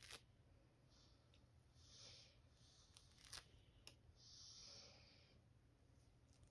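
Faint scratching of a fine-tooth metal comb raking across the scalp through short hair: a few short strokes, with a handful of sharp clicks between them. The comb is scraping dandruff flakes loose from the scalp.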